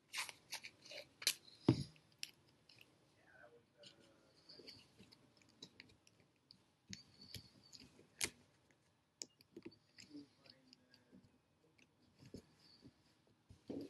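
Adhesive tape crackling as it is pulled off the roll and torn in the first two seconds, with one louder thump, then soft scattered clicks and rustling as the tape is pressed down onto popsicle sticks by hand.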